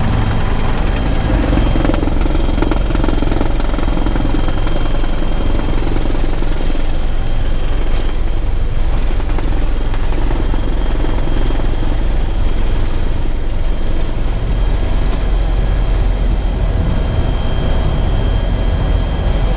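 Bell 412 helicopter in flight: a steady, loud rotor and turbine drone with a thin high tone running through it. A brief click about eight seconds in.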